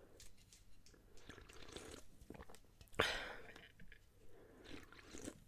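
A person drinking a fizzy energy drink from an aluminium can, close to the microphone: soft sipping, wet mouth clicks and swallowing. One louder sudden sound comes about three seconds in and fades over about a second.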